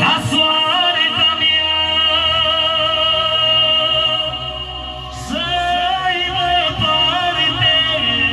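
Live music: a high melody held in long, wavering notes with slides into them, in two phrases, the second starting about five seconds in, over a steady sustained accompaniment.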